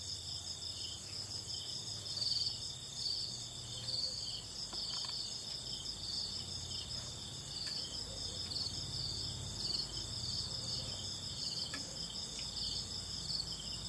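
Insects chirring steadily in a high, pulsing trill over a low background hum, with a couple of faint clicks.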